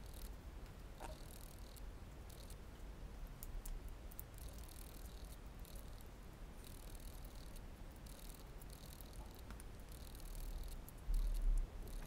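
Faint rustling and light plastic clicks of fingers feeding the inked fabric ribbon into an opened Commodore MPS 801 dot-matrix printer ribbon cassette, with a low thump about eleven seconds in.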